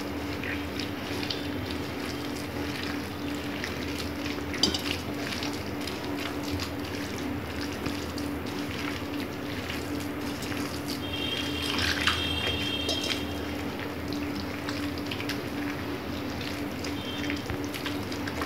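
A hand squishing and stirring wet ragi flour dosa batter in a ceramic bowl, with irregular wet squelching and sloshing. A steady low hum runs underneath, and a brief high-pitched tone sounds about twelve seconds in.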